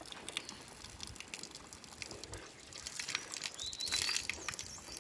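Water pouring from a spring spout in a stone wall, splashing onto the stones and over hands being washed, with the splashing busiest about three to four seconds in. Birds chirp in the background, with a short call just before four seconds.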